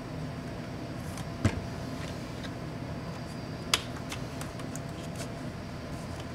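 Plastic clips of a laptop display housing snapping loose as the bezel and lid are prised apart by hand: two sharp snaps about two seconds apart, then a run of lighter clicks, over a steady background hum.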